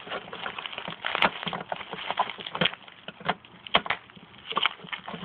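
Plastic packaging being pulled and torn open by hand: irregular crinkling and crackling, with a sharp click about a second in.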